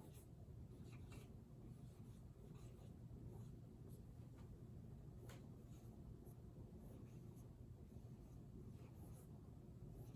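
Faint scratching of a pen writing words, in short irregular strokes over a low steady hum.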